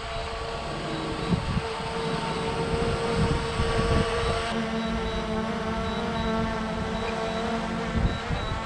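DJI Mavic Air 2 drone's propellers whining steadily during its automatic return-to-home landing, with wind gusting on the microphone. About halfway through, a lower tone joins the whine.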